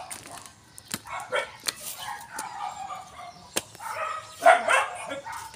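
Short, repeated pitched animal calls, loudest about four and a half seconds in, with two sharp clicks, one about a second in and one past three and a half seconds.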